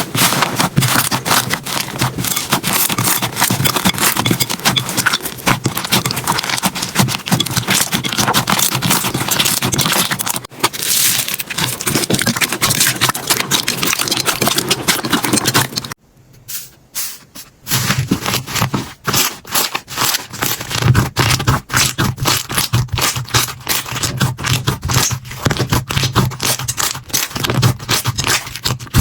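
Slime being squished and worked, a dense run of crackling and popping clicks. It breaks off abruptly about halfway through and resumes as sparser, sharper clicks.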